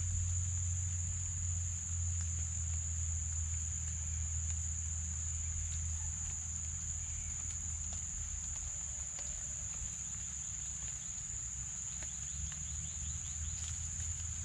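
Steady high-pitched insect chorus of crickets, over a low steady rumble and scattered drops tapping on a tarp.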